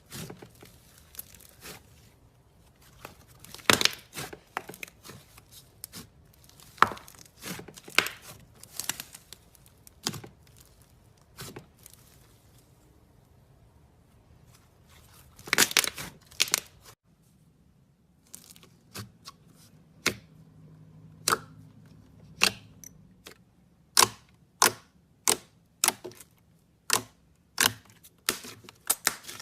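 Slime being squeezed and poked, giving sharp popping and crackling clicks that come irregularly at first and settle into an even run of about two pops a second near the end.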